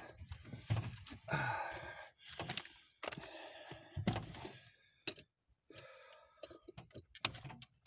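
Scattered knocks, sharp clicks and rustling of hand work on a car's steering column under the dashboard, with a sigh or grunt or two.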